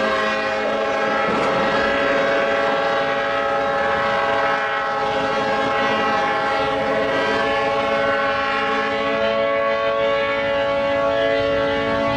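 Ship horns held in one long, steady blast of several pitches sounding together.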